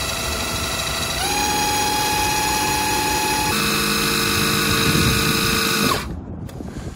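Cordless impact driver spinning a drill-driven oil pump that is pumping gear oil, a steady motor whine that shifts pitch about a second in and again midway. The whine cuts off suddenly about six seconds in, as the driver's battery runs flat before the fill is finished.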